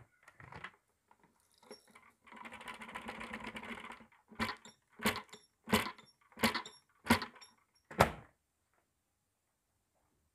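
Red lentils poured out of a Dyson cylinder vacuum's clear dust bin onto a carpet in a rattling rush of about two seconds, followed by six sharp rattles about two-thirds of a second apart as the bin is shaken. The vacuum motor is off.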